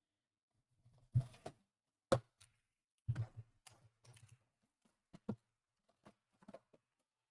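Trading card packaging being handled: irregular clicks and knocks with short rustles, as cardboard blaster boxes and foil packs are opened.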